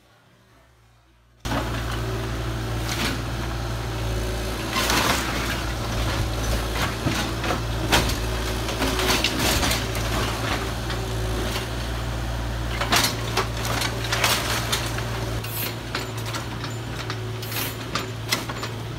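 Kubota mini excavator's diesel engine running steadily, with repeated crashes and clatter of brick and wood debris falling and being dragged as the machine pulls down a house. The sound cuts in suddenly about a second and a half in, after near silence.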